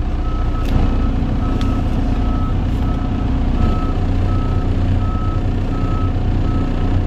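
Semi truck's reversing alarm beeping steadily at one pitch, about one and a half beeps a second, over the low, steady running of the truck's diesel engine while it backs into a dock.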